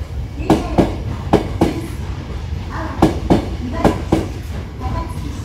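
Hankyu Kyoto Line train rolling slowly through the station, its wheels clacking over rail joints. The knocks come in pairs about a quarter second apart as each bogie's two axles cross, four pairs over a steady low rumble.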